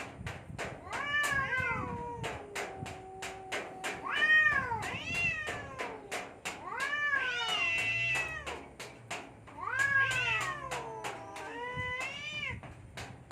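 Cats yowling at each other in a standoff: a run of long, wavering caterwauls that rise and fall in pitch, one after another. A quick, regular clicking, about three a second, runs behind them.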